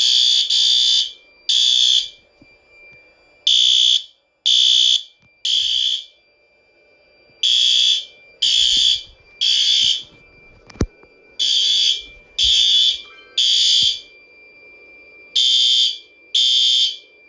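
System Sensor P2R horn-strobe's horn sounding the temporal-three fire evacuation pattern: three short loud blasts, then a pause, repeating. A faint steady high tone runs underneath. The fire alarm system is in alarm after a smoke detector was activated.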